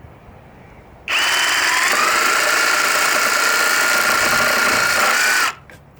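Ozito PXC 18V brushless reciprocating saw running steadily with a high motor whine, starting about a second in and stopping after about four and a half seconds.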